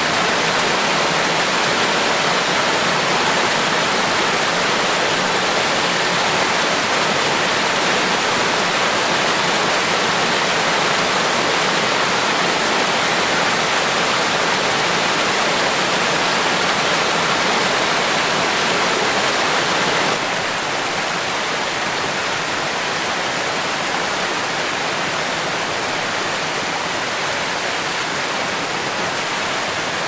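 Mountain stream running over rocks and small cascades: a steady, even rush of water. It drops a little in loudness about two-thirds of the way through.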